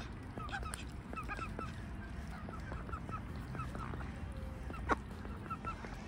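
A chatter of short calls from waterbirds, several a second, with light clicks and rustles of ducks rooting through dry leaves and one sharp click about five seconds in, over a steady low rumble.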